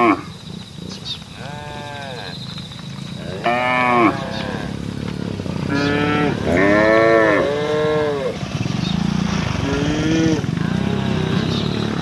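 Several cattle mooing, about eight calls in turn, each rising then falling in pitch, with some overlapping around the middle. A steady low rumble runs underneath.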